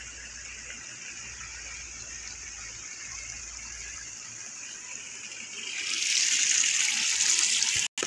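Rain falling, a steady hiss that swells louder about six seconds in and cuts off suddenly just before the end.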